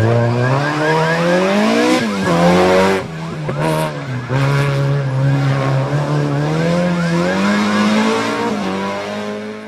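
Engine of a classic Mini-bodied rally car revving hard and changing pitch as it drives a tarmac stage, with rises and drops through gear changes. The sound fades away near the end.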